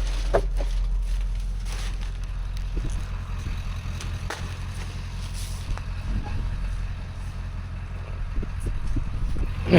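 Steady low rumble of a running vehicle engine, with a few light clicks over it.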